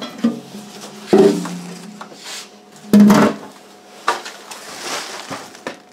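Clattering knocks as the empty black plastic case of a lithium battery pack is pulled off its block of cells. There are several knocks, the loudest about a second in and about three seconds in, each leaving a short low ring.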